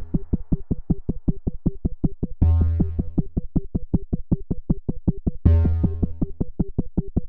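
Background electronic music: a quick repeating synth note, about six a second, with a deep bass hit about every three seconds.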